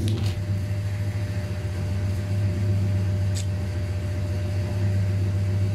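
A steady low hum, with a faint brief tick about three and a half seconds in.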